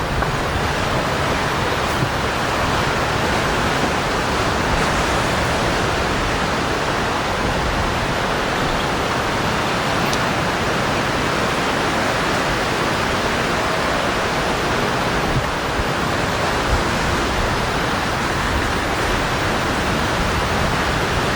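A steady, even rushing noise with no rise and fall.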